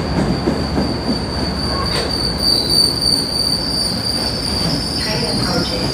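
MBTA commuter rail train's coaches rolling along the platform, the wheels giving a steady high-pitched squeal over a low rumble.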